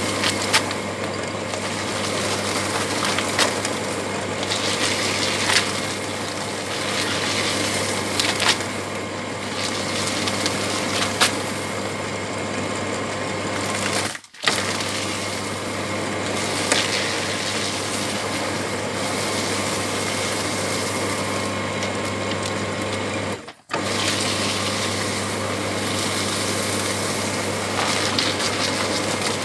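Electric paper shredder running steadily, its motor humming while the cutters chew through junk mail with a crackling, tearing noise and a few sharp snaps. The sound cuts out sharply for a moment twice, about halfway through and again near three quarters.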